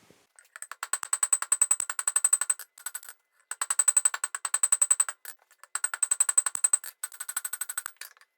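Steel being forged under rapid hammer blows: runs of fast, ringing strikes, about seven a second, broken by short pauses.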